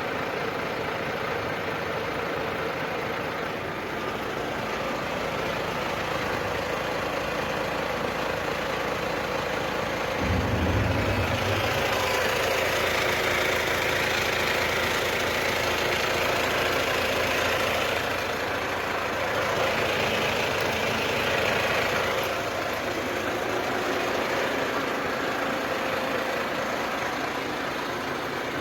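Heavy diesel engine of a Volvo work machine running steadily. About ten seconds in its note gets deeper and louder, as under load. A higher-pitched noise rises over it twice, once for several seconds and once more briefly.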